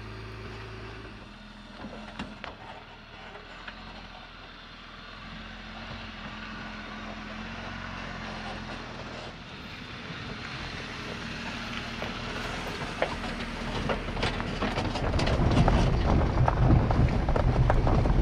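Jeep Wrangler driving on a dirt road, its engine running under a rumble of tyre and road noise. The sound grows louder over the last several seconds, with scattered crackles from the dirt and gravel.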